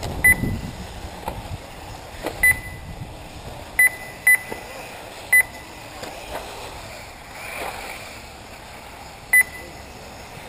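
Short, sharp electronic beeps from the RC race's lap-timing system, six of them at uneven intervals, each marking a car crossing the timing line. Beneath them runs the faint sound of the electric 1/8-scale buggies on the track.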